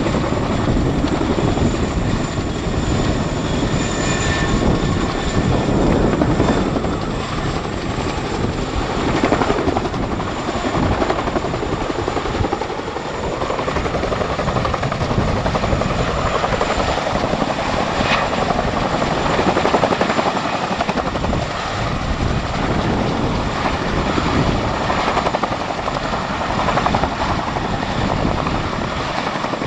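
Boeing CH-47 Chinook tandem-rotor helicopter flying low past, its two rotors and turbine engines running loud and steady, swelling and easing slightly as it moves.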